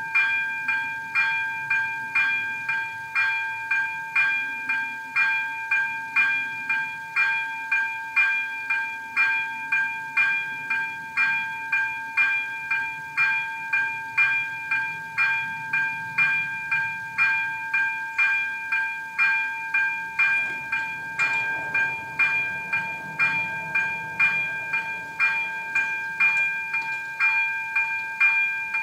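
Level-crossing electronic warning bell (AŽD ZV-02) ringing, a bright metallic ding struck about twice a second, which means the crossing is activated and a train is approaching. A fainter low rumble joins about two-thirds of the way in.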